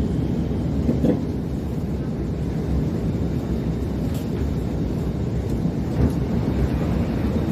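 Steady low rumble and hum inside an SMRT R151 metro train car, with a few faint knocks.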